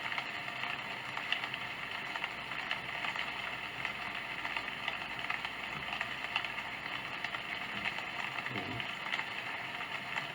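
Forest-rain track from a Sound Oasis sound machine: a steady hiss of rainfall with scattered light ticks of drops.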